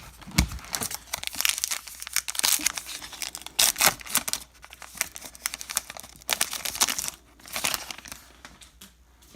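Plastic wrapper of a baseball card pack being crinkled and torn open, in irregular bursts of crackling that die away near the end.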